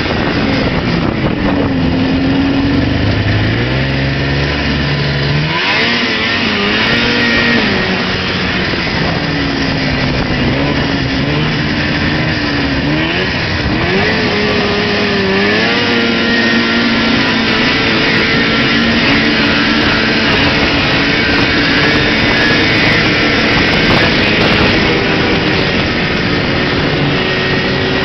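Old Arctic Cat Pantera snowmobile's two-stroke engine running under way, heard from the rider's seat; its pitch drops and rises with the throttle through the first half, then holds steady, over a constant rushing noise.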